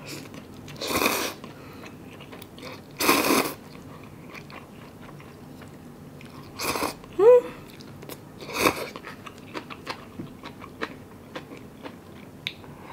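Close-up eating of cup ramen noodles: four loud, short slurps spaced about two seconds apart, with a brief rising hum after the third. Then soft chewing with small crunchy clicks.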